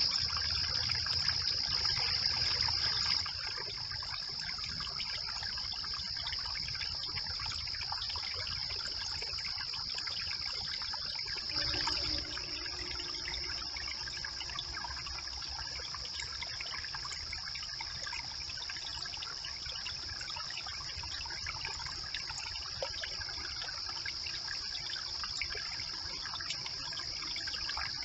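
Brook water trickling steadily, with a constant high-pitched drone over it.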